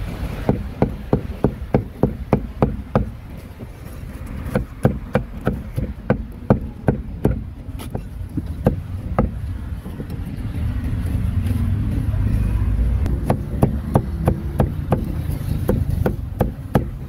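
Cleaver chopping grilled meat on a wooden chopping block: quick sharp strikes about three a second, in runs with short pauses, over a low traffic rumble that swells in the middle.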